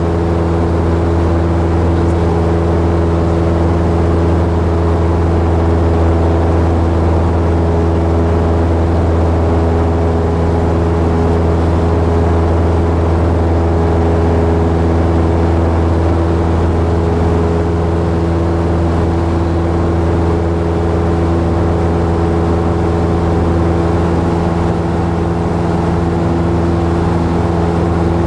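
Single-engine light aircraft's engine and propeller droning steadily in cruise, heard from inside the cockpit.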